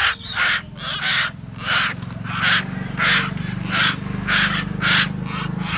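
Caged common hill mynas giving harsh, rasping calls over and over, about two a second.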